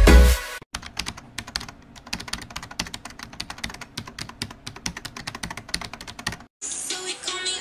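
Electronic dance music cuts off about half a second in, then a rapid, irregular run of computer keyboard typing clicks goes on for about six seconds. Near the end the clicks stop and a room's background sound comes in.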